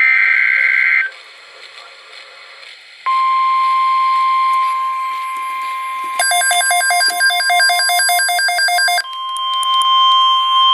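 Emergency Alert System broadcast: the last one-second buzzy SAME header data burst, a short gap of hiss, then the steady single-pitch NOAA Weather Radio alert tone from about three seconds in. From about six to nine seconds in, a rapid even beeping alarm sounds over the tone.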